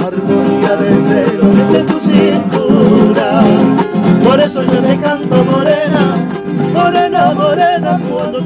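Live Argentine folk music: strummed acoustic guitars keeping a steady beat under a wavering melody line, a passage without sung lyrics.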